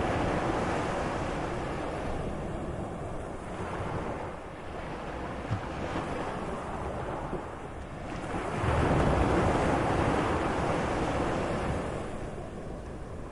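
Moderate sea waves washing in and out, swelling and easing in surges, with the biggest swell breaking about two-thirds of the way in. Some wind noise on the microphone.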